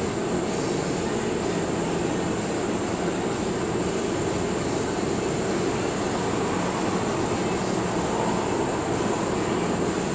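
A steady, even machine drone with no distinct events, and a faint steady high whine above it.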